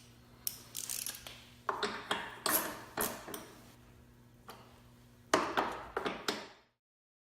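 Socket ratchet clicking in three short bursts as bolts on a lawn mower are turned, mixed with clinks of metal tools; the sound cuts off suddenly near the end.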